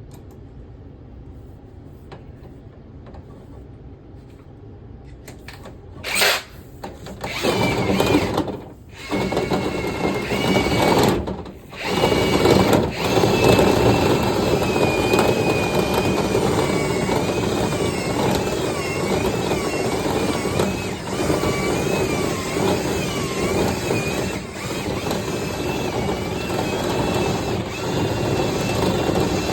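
A sharp click, then a motor starts up, cuts out briefly twice, and settles into steady running with a whine that wavers up and down in pitch.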